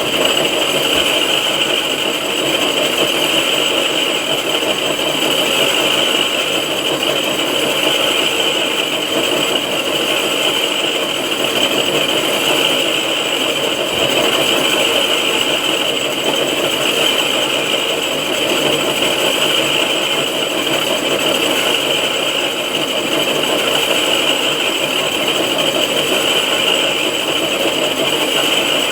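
Soviet 6R12 vertical knee-type milling machine running steadily while milling the face of a cylinder head: an even machine drone with a high, steady ring of the cut.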